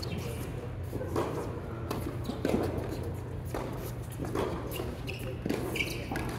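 Tennis ball being hit by rackets and bouncing on an indoor hard court during a rally: sharp pops about a second apart, echoing in the hall, over a steady low hum.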